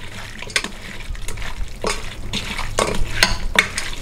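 Raw mutton pieces being mixed by hand with turmeric and ginger-garlic paste in a steel bowl: an irregular run of short clicks and knocks as the meat and fingers work against the bowl.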